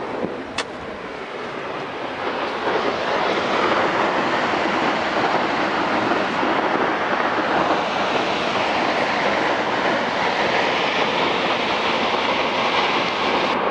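A large volume of water pouring from a dam's outlet and crashing into the gorge below: a steady, dense rushing noise that swells over the first few seconds, then holds. A single faint click comes about half a second in.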